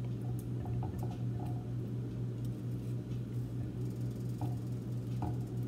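Faint scattered soft clicks and wet squishes of cauliflower florets being handled in a metal bowl of batter, over a steady low hum.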